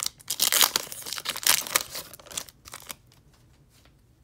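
Trading cards being slid and flipped by hand: a run of quick papery rustles and scrapes for the first few seconds, then it falls almost silent.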